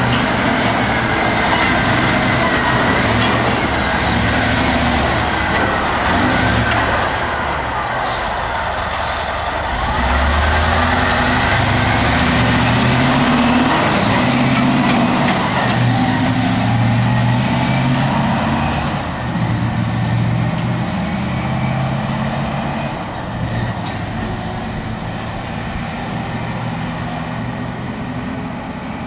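Caterpillar 769D off-highway dump trucks' diesel engines running under load as the trucks drive past on a dirt haul road, with a whine that rises and falls in pitch. The sound eases off after about two-thirds of the way through as a truck pulls away.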